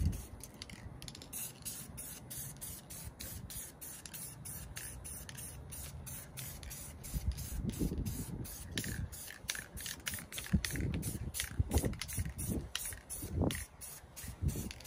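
Krylon Fusion aerosol spray paint can hissing in many short bursts, a few a second, as light coats go onto a rifle. A few low thumps come in the second half.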